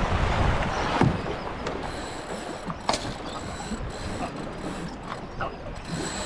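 Wind and water rushing aboard a Hobie 16 catamaran under sail, strongest in the first second, with scattered sharp clicks and knocks from the boat's fittings; the sharpest comes about three seconds in.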